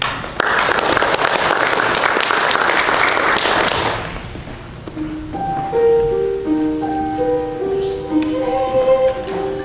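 Audience applause for about the first four seconds, dying away. A grand piano then starts the introduction to the song, playing single sustained notes one after another.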